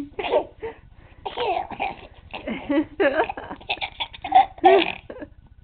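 A baby laughing in a string of short, repeated bursts.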